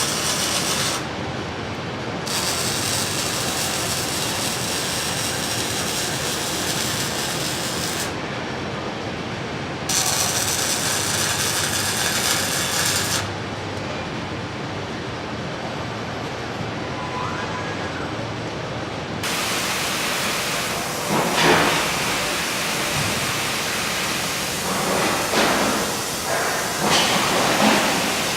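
Robotic arc welder running, a steady hissing crackle that thins out several times, longest for several seconds in the middle, between welds. Near the end come a few sharp metal knocks.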